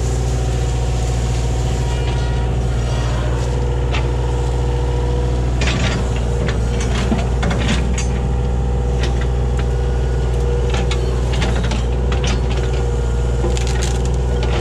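Kubota KH-60 mini excavator's diesel engine running steadily under digging work, with clusters of sharp knocks and scrapes from the bucket in the dirt and roots around the stump, about six seconds in and again near the end.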